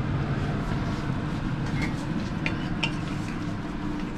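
Chicken wings sizzling in a wok as the cola-and-soy sauce reduces to a glaze, over a steady low rumble. A few light clicks of a wooden spatula against the pan come a little past halfway.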